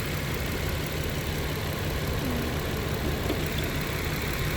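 Vehicle engine idling steadily, a low, even running sound.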